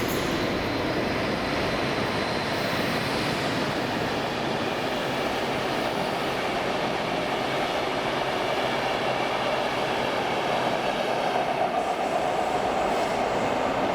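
A train running in the station: a steady rumble of wheels on rail. A faint steady tone comes in near the end.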